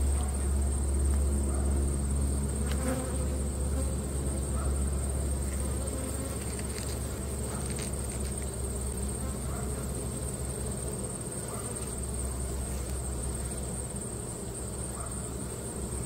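Honeybee colony buzzing steadily over the open frames of a hive.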